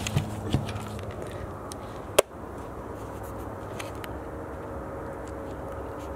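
Steady hum of distant highway traffic, with one sharp click about two seconds in.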